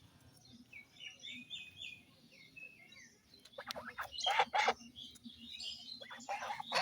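Domestic geese calling: a string of small chirps, then loud, harsh calls about three and a half seconds in and again near the end.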